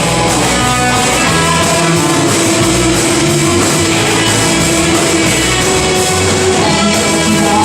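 Live rock band playing loud and steady: distorted electric guitar over bass and drums, with no vocal line standing out.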